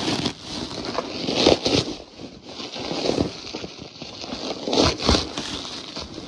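A large parcel wrapped in bubble wrap being handled, with crinkling and scraping in irregular bursts, loudest about a second and a half in and again about five seconds in.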